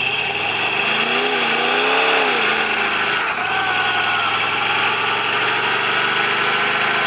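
Dune buggy's engine revving up and down twice, then held at high revs as the rear tyres spin in a burnout.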